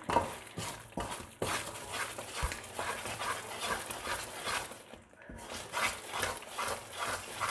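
Wooden spatula stirring and scraping thick semolina halwa in a steel pan, a rhythmic run of strokes a couple of times a second, pausing briefly about five seconds in.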